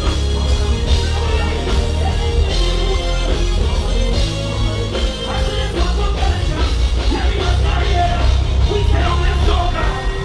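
Loud soca music with a heavy bass beat playing without a break.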